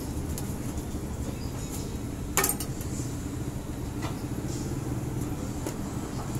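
Steady low rumble of a busy street stall, with one sharp metallic clink about two seconds in and a couple of lighter clicks later: utensils knocking against the steel counter and trays as shawarma wraps are filled.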